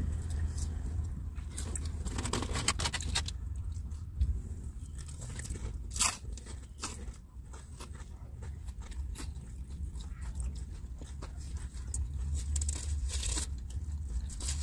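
Close chewing and mouth sounds of people eating a burger and fries, with scattered small clicks and rustles, over a steady low hum.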